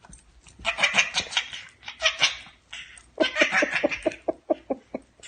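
A person laughing: breathy bursts of laughter, then a fast run of short "ha-ha" pulses that slow and fade towards the end.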